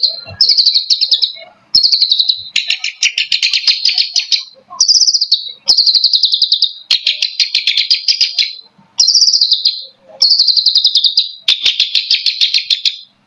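Long-tailed shrike (cendet) singing: loud phrases of rapid chattering notes, each about a second long with short breaks between, some turning to a harsher rasp.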